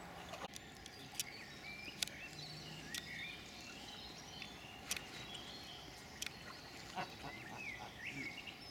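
Small songbirds chirping in short, quick phrases over a low outdoor hiss, with several sharp ticks scattered through.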